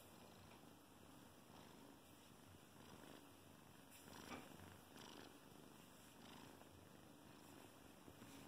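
Faint, steady purring of a 12-week-old Bengal kitten being stroked on the head, with a brief rustle about four seconds in.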